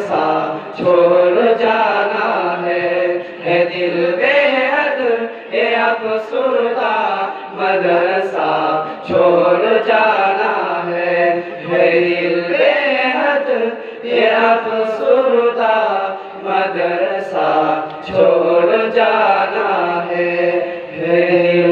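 A group of young men singing an Islamic devotional song (nasheed) together into microphones, amplified through a PA system, in continuous phrases.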